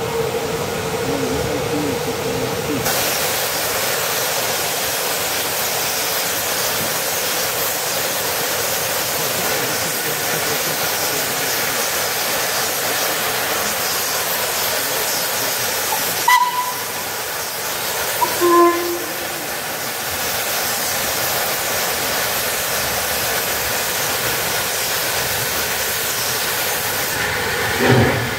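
Steam locomotives standing with steam hissing steadily, starting about three seconds in. Two brief whistle toots come about two-thirds of the way through. The first exhaust beat sounds near the end as the double-headed train starts away.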